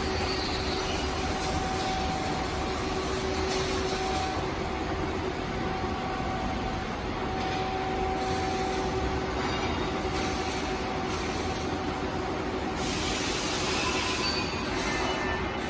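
JS1000 twin-shaft concrete mixer running, its two electric motors and reducers turning the large open spur gears: a steady metallic rumble with a faint whine that fades in and out.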